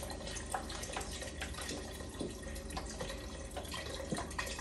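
Broth pouring from a carton into a pot of gumbo: a steady stream of liquid with small splashes. The carton is held turned so that it pours smoothly rather than popping.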